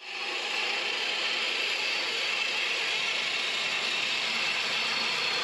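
A metalworking machine running on stainless steel: a steady, gritty rasp that starts abruptly and holds even.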